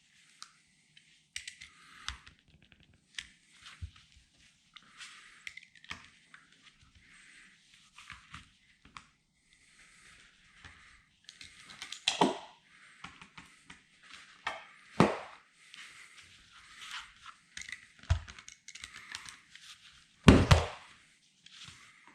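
Irregular run of short rasping scrapes from a blade and hand tools working the rubber seal around a VW T2 bay-window windscreen. Several sharp knocks break in, the loudest about twenty seconds in.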